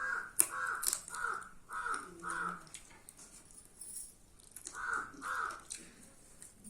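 A crow cawing: five short caws about half a second apart, then a pause and two more caws about five seconds in. A few sharp clicks sound among the first caws.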